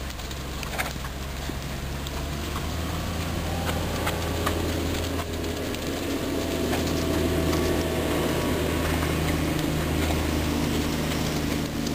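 A steady low engine hum that grows a little louder a few seconds in, with a few faint clicks.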